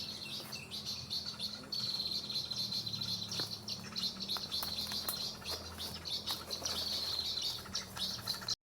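Steady high-pitched chirring of insects with scattered small bird chirps over it. It breaks briefly about two seconds in and cuts off abruptly near the end.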